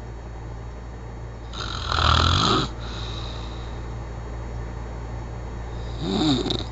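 A person snoring in their sleep: two loud snores about four seconds apart, the first about two seconds in with a rattling flutter, the second near the end. A steady low hum runs underneath.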